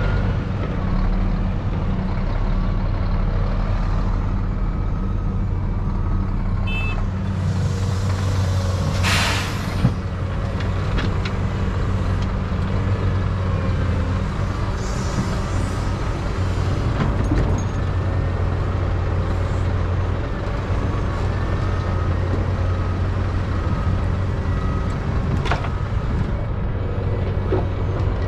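Diesel engines of a Caterpillar excavator and a Scania dump truck running steadily while the excavator loads earth into the truck's tipper body. A short, loud hiss of air comes about nine seconds in, and a reversing alarm starts beeping faintly near the end.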